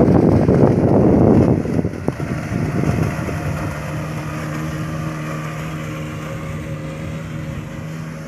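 A motorboat's engine running at a steady speed, under loud wind buffeting on the microphone for the first second or so.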